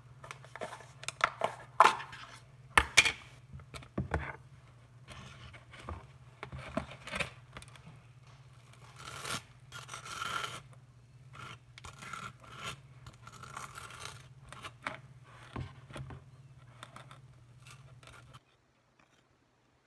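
Table knife scraping and spreading cream cheese across slices of white bread: a run of short scrapes and taps over a steady low hum. Everything cuts off near the end.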